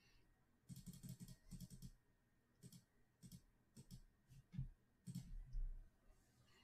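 Faint clicking of a computer mouse and keyboard as a spreadsheet list is cut, pasted and sorted: a quick run of clicks about a second in, then scattered single clicks.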